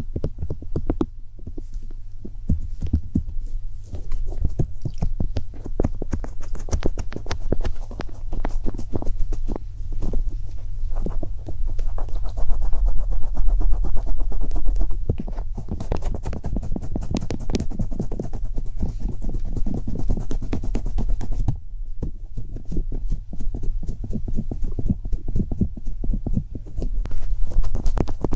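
Rapid, irregular tapping and clicking close to the microphone, denser and louder in the middle, over a steady low hum.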